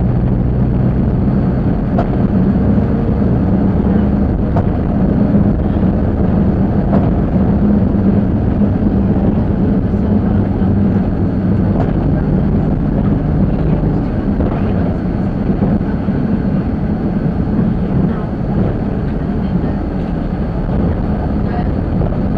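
Waggon und Maschinenbau railbus under way: its diesel engine drones steadily under the rumble of wheels on the track, with occasional faint clicks. The engine note shifts about a second and a half in.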